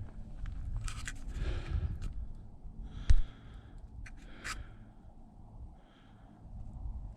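Scuffing, scraping footsteps over a steady low wind rumble, with one loud knock about three seconds in.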